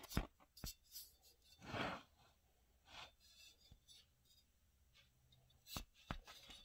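Handling noise from a stamped steel AK receiver turned over in the hands: a few light knocks and a brief rustle, faint.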